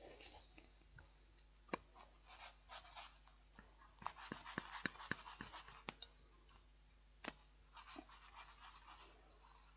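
A utensil stirring noodles in a microwave meal pot: faint scraping with scattered clicks and taps, busiest around the middle.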